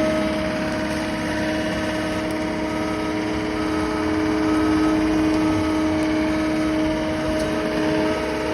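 Handheld electric paint-correction machine (polisher/sander) running steadily at a constant speed, with an even motor hum.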